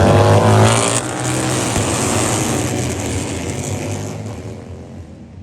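Racing motorcycle engine at high revs, rising in pitch in the first second, then going past and fading away.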